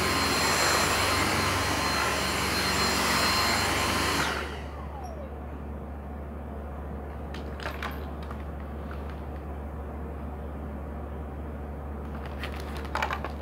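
Dyson V6 cordless stick vacuum running on carpet with a steady high whine, switched off about four seconds in, its motor winding down in a falling tone. After that a low steady hum remains, with a few light clicks in the middle and near the end.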